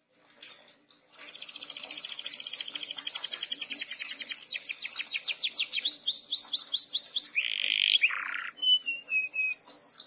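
Domestic canary singing: a fast trill of repeated notes that grows louder, then a few slower sweeping notes, a harsh buzzy phrase, and a short run of falling notes.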